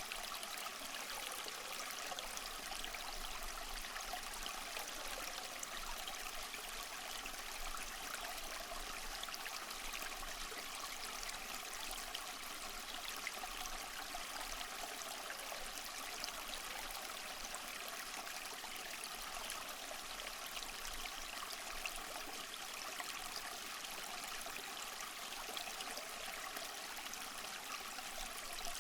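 Small stream flowing steadily, water trickling and bubbling over stones in a continuous fine rush.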